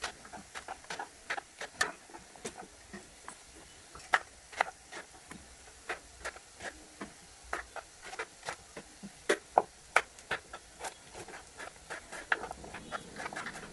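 Knife chopping vegetables on a cutting board: irregular sharp taps, about two or three a second.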